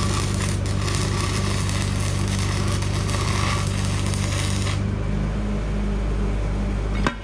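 Stick-welding arc with E6010 rod, a steady crackle and hiss over the welding machine's low hum. The arc stops about five seconds in, leaving the hum, and a sharp click comes near the end.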